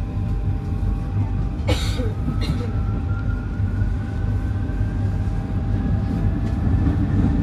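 Paris Métro Line 5 train running between stations: a steady low rumble with a faint whine that rises slowly in pitch. Two short sharp clatters come about two seconds in.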